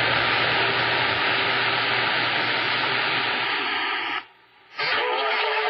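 CB radio receiver hiss and static while listening for a distant station, with a faint steady tone in it. The static cuts out for about half a second about four seconds in, then comes back with a faint, unreadable voice under the noise.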